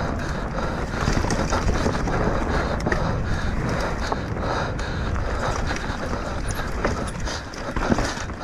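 Mountain bike descending fast over rough dirt and rock: tyres rumbling, with the chain and frame rattling and wind buffeting the microphone. Sharp knocks from hits on the trail come here and there, the loudest near the end.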